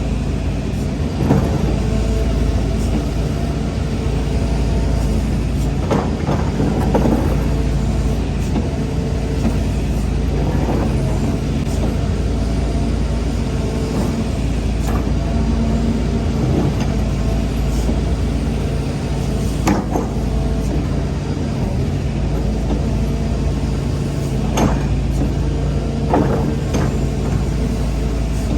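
Hitachi excavator's diesel engine running steadily under working load, with short clanks and knocks every few seconds from the grapple-bucket attachment and boom at work.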